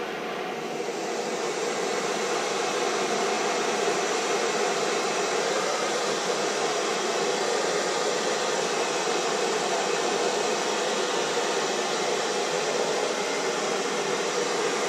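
Handheld hair dryer running steadily, blowing hot air onto a vinyl decal to soften it so it stretches round a curved panel. It gets a little louder about a second in.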